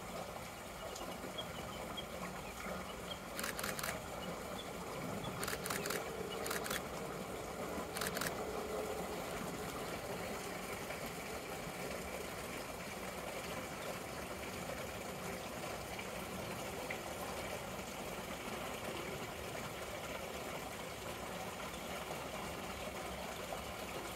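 Steady outdoor background noise, with a few short clicks about three to eight seconds in.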